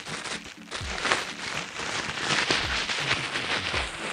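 Plastic bubble wrap crinkling and crackling as it is handled and pulled off a packed exhaust silencer, a continuous irregular rustle with many small crackles.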